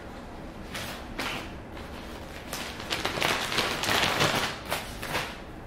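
Plastic mailer bag crinkling and rustling as a garment is stuffed back into it, in a string of short crackly bursts that grow busier and loudest about three to four seconds in.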